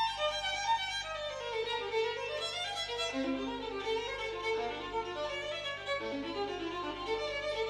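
Violin music playing a moving melody, with a steady low hum underneath.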